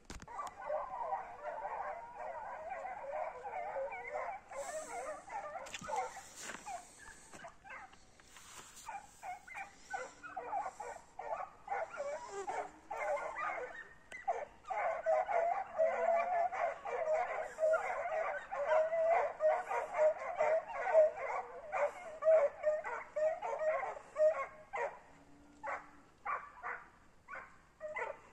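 Canines yipping and whimpering in a fast, continuous chorus of overlapping high calls, thinning to separate short yips near the end.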